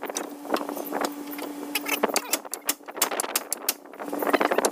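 Hand tools clinking and tapping on metal suspension parts in quick, irregular clicks, over a steady hum.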